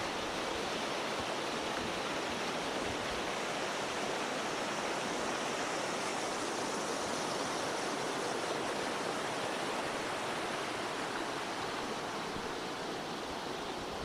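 Mountain stream rushing over rocks beneath a wooden footbridge: a steady, even rush of water that grows slightly fainter near the end.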